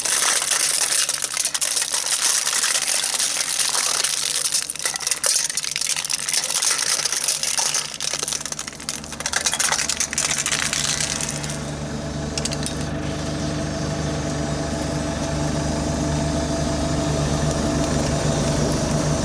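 Road roller engine running. For about the first eleven seconds dense crackling and crunching lies over it as objects are crushed under the roller; after that the engine's steady hum goes on alone.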